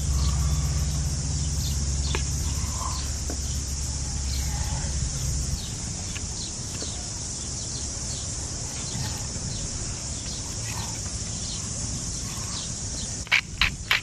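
Outdoor ambience: a steady high insect chorus with a few bird chirps, a low rumble that drops away about five seconds in, and faint ticks of a filleting knife scoring a trout on a wooden chopping board.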